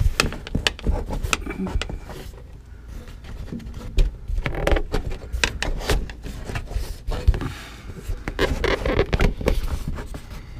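Vinyl-covered cardboard package tray being pushed and worked by hand under the rear window weather stripping: irregular scraping and rustling with scattered knocks and clicks as the tray rubs and bumps against the trim.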